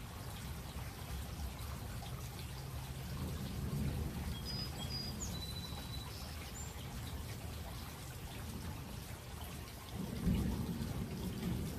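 Steady rain of a thunderstorm with thunder rumbling low, swelling a few seconds in. A louder thunder roll breaks about ten seconds in.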